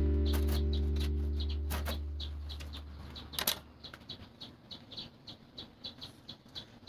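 A strummed guitar chord from background music rings out and fades away over the first three seconds, then faint, irregular clicks and light taps.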